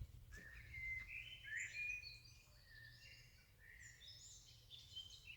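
Songbirds singing: a steady run of quick chirps and short whistled phrases, over a faint low hum of distant traffic.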